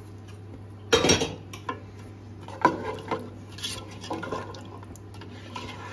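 Ladle stirring thin beef paya curry in a large stockpot: irregular scrapes and knocks against the pot's sides and bottom, the loudest about a second in.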